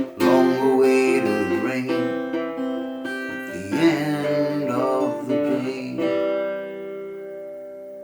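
Closing bars of a song on a strummed cittern, ending on a final chord about six seconds in that rings and slowly fades.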